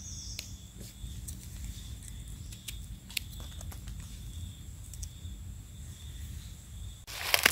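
Faint rustling and scattered light clicks in dry leaf litter under a steady high insect trill. Near the end the trill stops and a louder crackling rustle of dry leaves starts.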